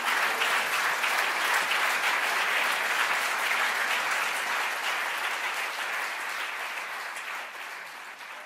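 Theatre audience applauding the actors' bows, a dense steady clapping that fades out gradually near the end.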